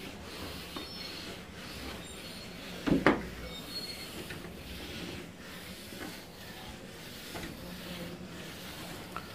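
Marker pen working on a whiteboard: faint rubbing strokes over a steady low room hum, with one brief, louder squeak about three seconds in.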